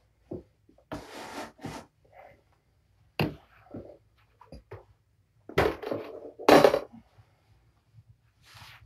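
A plastic weighing scale being handled and set down on the floor: an uneven series of knocks, thuds and rustles, the loudest a little past halfway.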